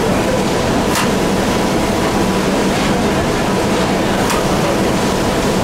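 Mobile belt-conveyor truck loader, driven by an Interroll drum motor, running steadily as a constant mechanical din with a faint hum, and two sharp knocks, about a second in and about four seconds in.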